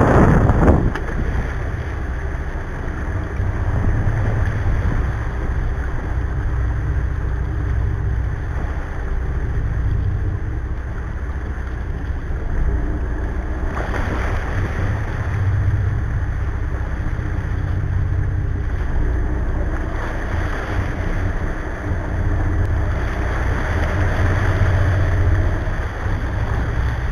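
Cabo 40 sportfishing boat's engines running steadily with a deep rumble, water rushing and churning past the stern, and wind buffeting the microphone.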